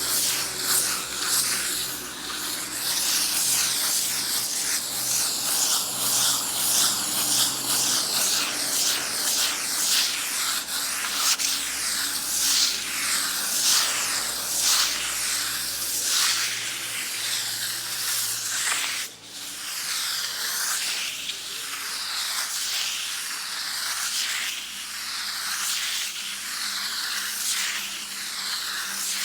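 Sandpaper rubbed back and forth on a wall in steady repeated strokes, making a continuous scratchy hiss. There is a brief break about two-thirds of the way through.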